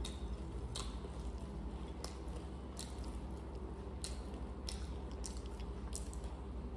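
Crisp mix of sev and puffed rice (bhel puri) crunching in sharp, separate crunches about once a second, over a steady low hum.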